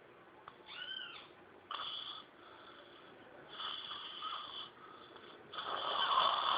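Domestic pig snoring in its sleep, with a noisy snore about every two seconds; the last one, near the end, is the loudest. A short rising-and-falling squeak comes about a second in.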